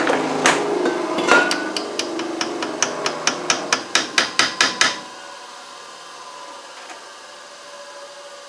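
Hammer striking a punch to drive a pin into the hole in a gearbox shaft: a few separate blows, then a quick run of sharp taps, about four or five a second, that stops about five seconds in.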